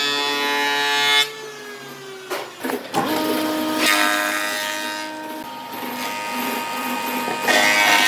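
Electric power tool working wood: its motor whines steadily, stops about a second in, a few knocks follow, and it runs again from about three seconds in.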